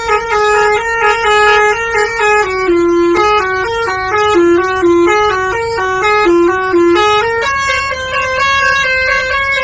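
Telolet basuri multi-tone bus horn playing a tune: a continuous run of held horn notes that step up and down in pitch several times a second.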